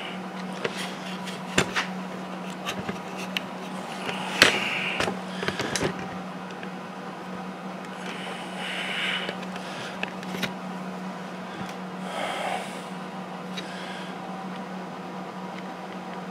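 A steady low hum, with scattered small clicks and knocks and a few short, soft hisses.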